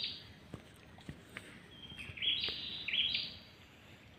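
A bird calling in three short high notes, the last two close together, over a few faint clicks.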